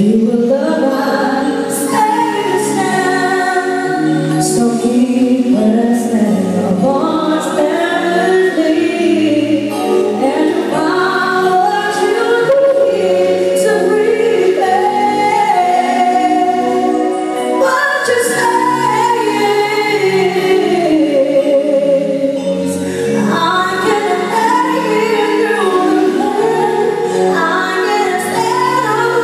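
A woman singing a slow ballad live into a microphone, accompanied by a band of bass guitar, drums and keyboards, with other female voices joining in places.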